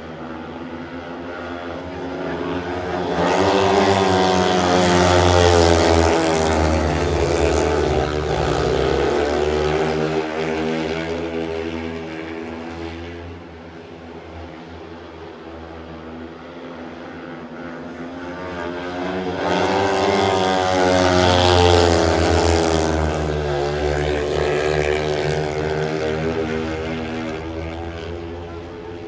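Several speedway motorcycles racing around the track, their single-cylinder engines swelling loud twice as the pack passes, about three and about nineteen seconds in, and dropping back between passes. The engine pitch rises and falls as the riders throttle through the bends.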